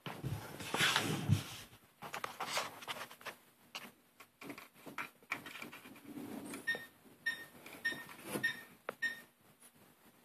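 Handling noise: rubbing, knocks and light plastic clicks from a hand working a model train locomotive on its track and moving the camera, loudest in the first two seconds. In the second half comes a run of short high beeps, about three a second.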